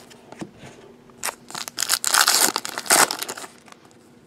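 Crinkling and tearing of a trading-card pack's wrapper as it is torn open and handled, in a burst of crackling that peaks about two seconds in and stops about a second before the end.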